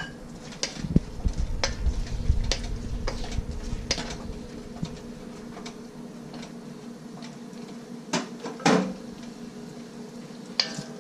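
Scattered clinks, knocks and scrapes of a metal utensil against a wok as chopped garlic is added to onions frying in oil, with a steady low hum underneath. A louder cluster of knocks comes a little after eight seconds in.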